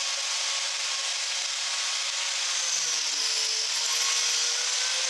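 Angle grinder fitted with a 14-tooth Lancelot chainsaw-chain carving disc, running and roughing into a block of ash: a steady motor whine over a dense rasping noise of chips being torn out. The motor's pitch dips slightly about three seconds in, then recovers.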